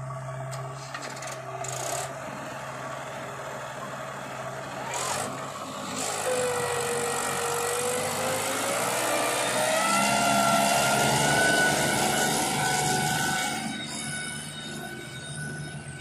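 Mahindra tractor's diesel engine pulling a trolley loaded with soil. The engine note grows louder from about six seconds in, with a whine that climbs in pitch, then eases near the end.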